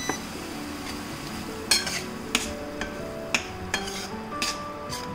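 A slotted metal spatula stirring a simmering tomato-onion masala in a stainless steel frying pan, with about five sharp clinks and scrapes of metal on the pan.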